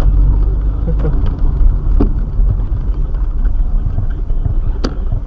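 Cabin noise of a moving car picked up by a dashcam: a steady low engine and road rumble, with a few sharp knocks about one, two and five seconds in.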